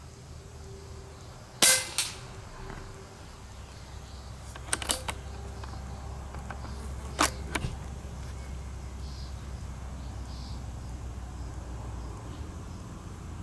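Edgun R3M .22 PCP air rifle firing twice, each shot a sharp crack followed by a fainter click about a third of a second later. A short run of quieter clicks falls between the two shots.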